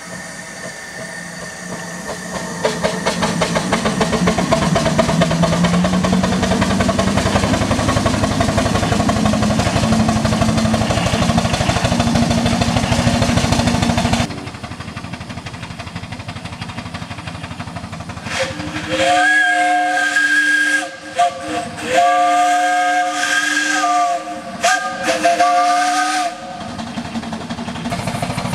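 5/8-scale live-steam traction engine running, its fast exhaust beats and a low drone rising in pitch as it picks up speed. Then, after a break, its steam whistle sounds a chord in several short blasts.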